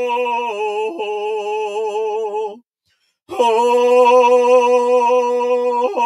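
A solo voice sings a wordless Shaker song in long held notes with a slow waver, breaking off for about half a second near the middle.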